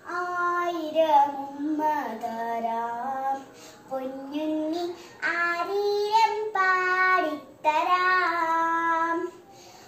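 A young girl singing solo and unaccompanied: long held, gliding notes in several short phrases, with brief pauses for breath between them.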